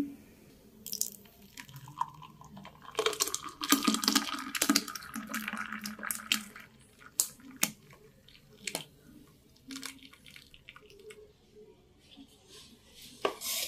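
Frothy blended aloe vera juice poured from a mixer jar into a glass tumbler, splashing and bubbling for about three seconds, followed by a few drips. A single sharp knock near the end.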